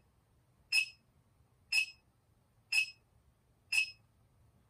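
Short, high electronic beeps from a small meter's beeper, evenly spaced about once a second.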